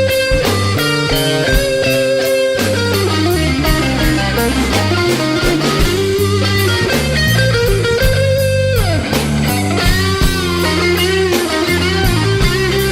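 Instrumental break of an electric blues song: a lead electric guitar plays wavering, bent notes, with one long downward slide about two-thirds of the way through, over bass guitar and a steady drum beat.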